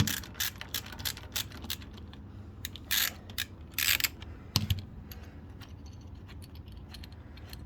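A hand tool working a tight screw loose on the engine: a quick run of sharp metal clicks, then two short rasping bursts about a second apart, a knock, and scattered clicks.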